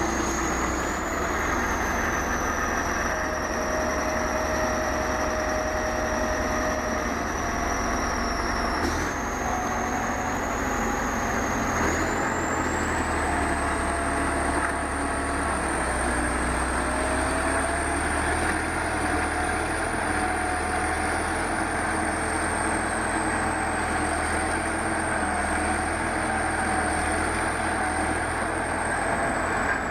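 A heavy vehicle's engine running steadily, with a thin high whine over it that steps up in pitch about nine and twelve seconds in.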